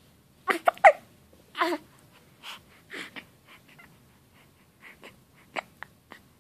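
A 2½-week-old baby hiccuping: a string of short, sudden catches in the breath at uneven intervals. The first few, in the first two seconds, are louder and have a squeaky, whimpering voice in them, and later ones are softer and breathier.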